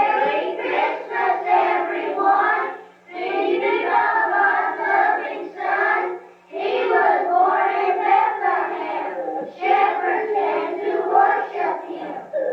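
A group of children singing together, in phrases with short breaks between them.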